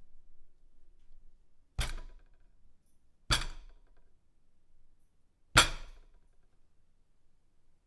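A fist pounding on a dinner table: three separate heavy thumps, the last the loudest, each with a brief rattle or ring of the table and what is on it dying away.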